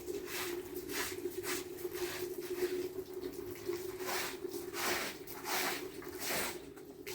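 Water dripping in irregular drops, about one or two a second, over a steady low hum.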